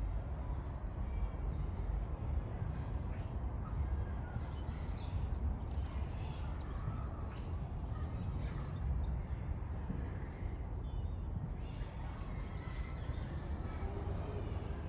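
Birds chirping and calling in quick, scattered notes over a steady low rumble of distant traffic.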